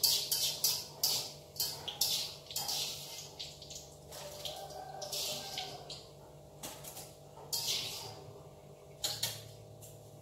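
Tap water running and splashing into a kitchen sink in short, irregular gushes as dishes are rinsed, with a steady low hum underneath.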